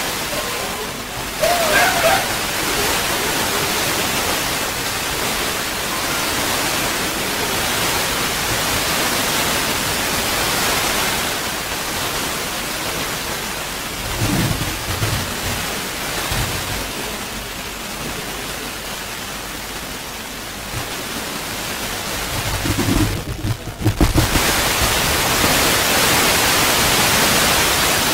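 A loud, steady rushing hiss. A few dull low thumps come near the middle and again about two-thirds of the way through, after which the hiss grows louder.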